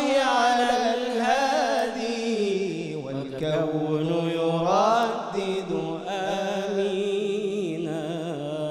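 Young male munshid singing an Islamic devotional chant (inshad) into a microphone, stretching one phrase into a long melisma. The notes waver in ornaments, dip about three seconds in, then climb in a rising run near the five-second mark before settling on held lower notes.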